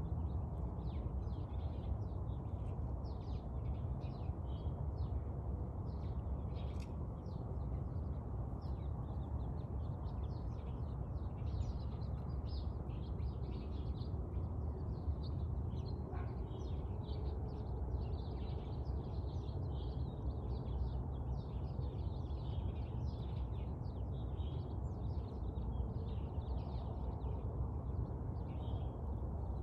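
Small birds chirping and twittering continuously, many short calls overlapping, over a steady low rumble.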